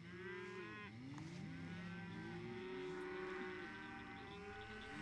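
Young cattle bawling, several faint drawn-out calls overlapping, each rising and falling in pitch.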